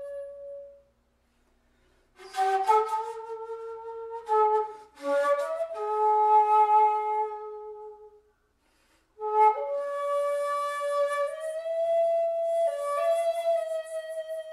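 Shakuhachi (end-blown bamboo flute) playing a slow melody of held notes with breathy attacks. It phrases with short pauses for breath about a second in and again around eight seconds.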